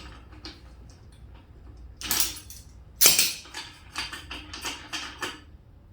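Metal motorcycle fork parts clinking and clattering as they are handled: a scrape about two seconds in, a sharp clank about a second later, then a run of lighter clinks.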